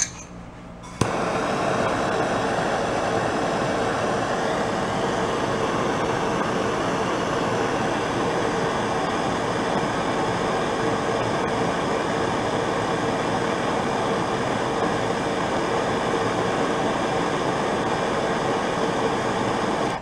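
Hand-held propane torch lit with a sharp click about a second in, then burning with a steady hiss while it heats the end of a steel Allen wrench; it shuts off at the very end.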